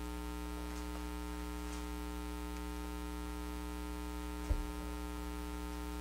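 Steady electrical mains hum from the sound system, with one short low thump past the middle.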